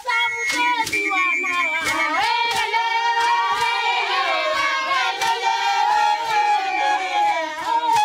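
Group of high voices singing together, with hand-clapping about twice a second.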